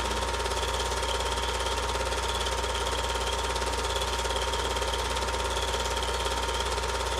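Super 8 film projector running: a steady, rapid mechanical clatter of the film advancing over a constant motor hum and a fixed whine.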